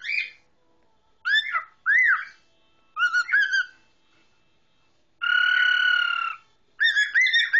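Male cockatiel whistling its song: short arched whistles in several bursts, a long held note about five seconds in, then a quick run of rising-and-falling whistles near the end.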